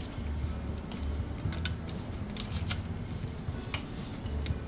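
Light clicks and clinks of small brass pump parts and a tool being handled against a plastic cup, a dozen or so sharp ticks at irregular intervals.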